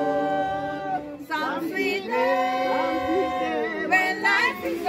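A group of voices singing a slow gospel hymn together, holding long notes with short breaks between phrases.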